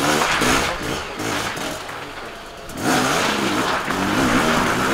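Enduro motorcycle engine revving on and off the throttle, easing off about two seconds in and picking back up just before three seconds.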